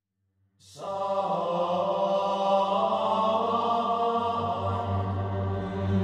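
Silence for the first half second, then background music begins: chant-like, mantra-style singing over a steady low drone.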